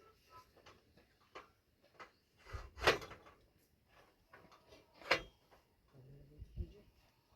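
Scattered light knocks and two louder thuds, a little over two seconds apart.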